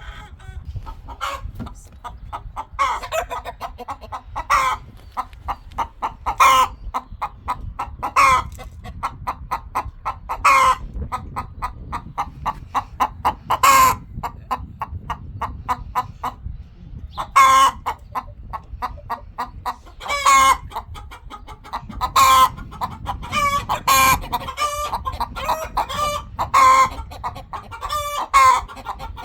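A flock of chickens clucking continuously in quick short calls, with louder sharp calls standing out about every two seconds.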